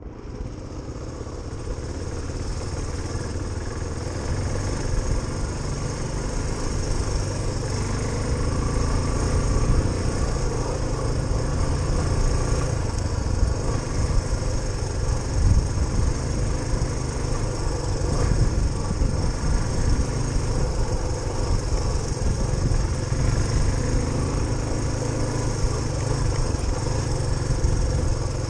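Suzuki DR350SE's single-cylinder four-stroke engine running, with a heavy low rumble; it builds over the first few seconds and then holds steady.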